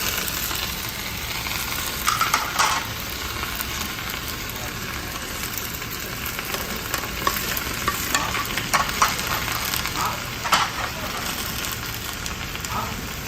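Food sizzling steadily as it is stir-fried, with scrapes and clinks of a utensil a few times, bunched about two seconds in and again past the middle.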